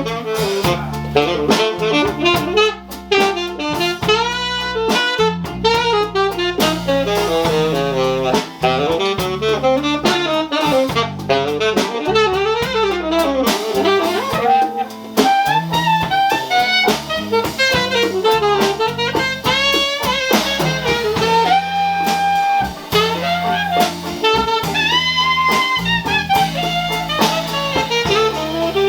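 Dixieland jazz band playing live: a wind instrument plays a fast, winding solo line over a bass line and drums.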